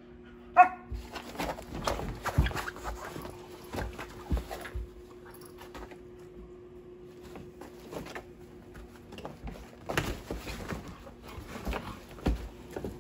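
A puppy gives one short, sharp yelp about half a second in. Then two puppies scuffle on a collapsed nylon pop-up tent, with fabric rustling and knocks from paws and bodies in two spells.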